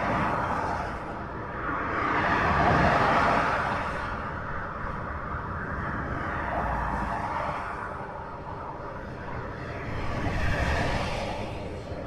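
Ring road traffic: a steady wash of tyre and engine noise from multi-lane traffic, swelling as vehicles pass by, most loudly about three seconds in and again near the end.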